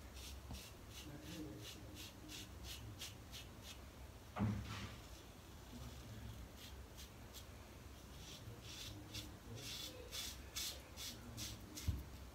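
Gem Micromatic single-edge safety razor scraping a day's stubble off a lathered scalp in runs of short, quick, faint rasps. A soft knock about four and a half seconds in.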